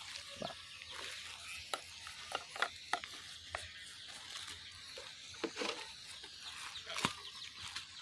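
Paintbrush dabbing and stroking liquid wood finish into a carved wooden sculpture, giving short, irregular scratchy brush sounds.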